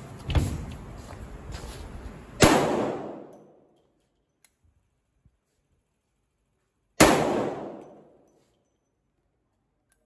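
Two loud Desert Eagle pistol shots about four and a half seconds apart, each with a tail that dies away over about a second. A fainter bang comes just after the start.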